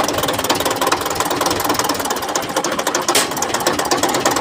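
Belarus 510 tractor's diesel engine running with a fast, even clatter, with one sharper click about three seconds in.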